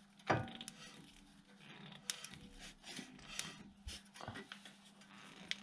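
Faint scattered clicks and light knocks from a Toyota Yaris driveshaft being turned by hand, working grease through the newly fitted inner CV joint boot. A low steady hum runs underneath.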